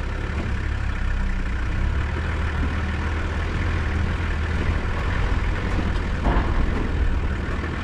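Toyota Land Cruiser Troop Carrier (Troopy) engine running steadily: a continuous low hum with no change in pace.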